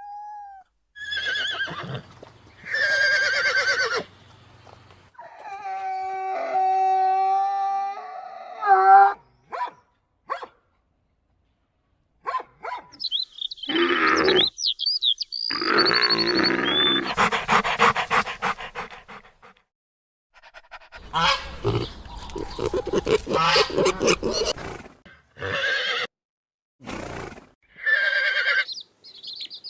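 A run of different animal calls, one short clip after another with brief silent gaps: a long, steady pitched call, high chirps and rougher, noisier cries.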